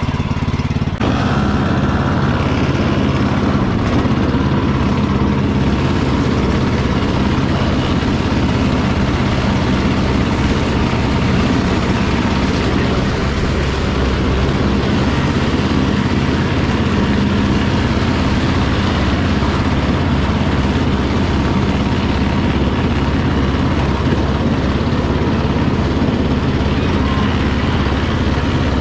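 Cub Cadet XT1 riding lawn mower's engine running steadily at a constant pace, its sound getting fuller about a second in.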